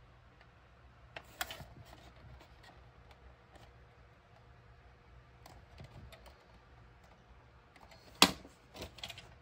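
A plastic VHS clamshell case being handled. A few sharp clicks come about a second and a half in as the case is snapped shut. Near the end there is a loud knock as it is set down on a hardwood floor, followed by a couple of lighter knocks.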